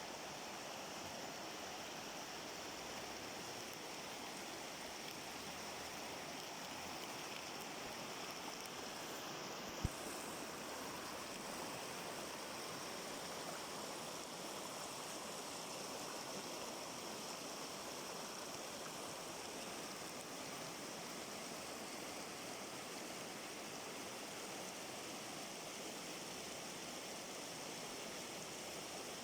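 Rubas mountain river rushing steadily over its bed, an even noise of running water. A single brief thump about ten seconds in.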